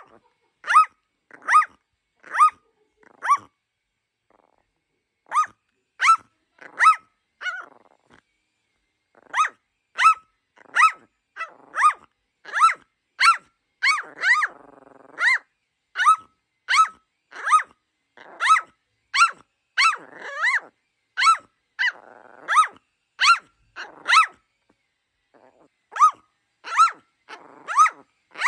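A small dog barking excitedly at a vacuum cleaner: a long run of sharp, high-pitched barks, one or two a second, with brief pauses and short growls in between.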